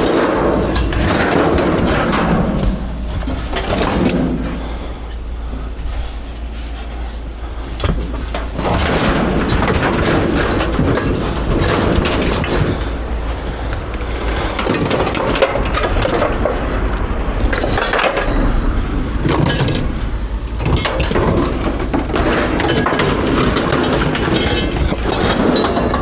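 Scrap metal being handled and moved: repeated clanks, rattles and knocks throughout, over a steady low rumble.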